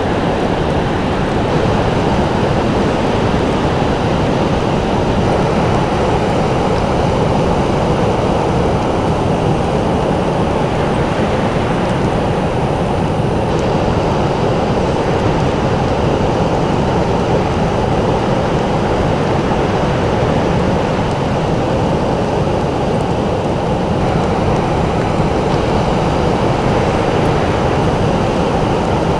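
Ocean surf, a steady, even rush of breaking waves with no single wave standing out.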